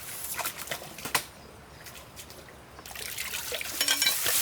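Water trickling and pouring, with a few light clicks about a second in; the pouring swells and grows louder near the end.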